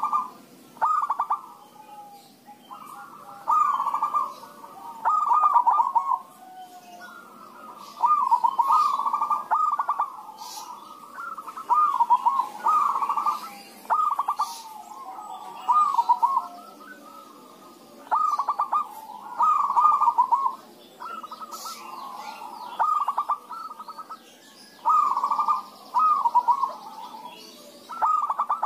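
Several zebra doves (perkutut) cooing back and forth, each call a rolling, trilled coo phrase about a second long, answering one another every second or two with calls sometimes overlapping.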